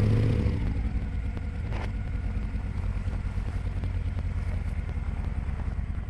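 Cruiser motorcycle engine idling with a steady low, rapidly pulsing note.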